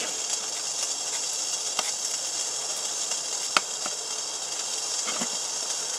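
Bowl of water boiling steadily on a small Wild Woodgas stove burning wood pellets: a steady high hiss with a few sharp ticks, the loudest about three and a half seconds in.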